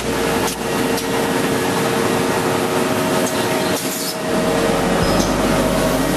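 Z-fold hand towel folding and wrapping machinery running: a steady mechanical hum and hiss, with a few brief clacks.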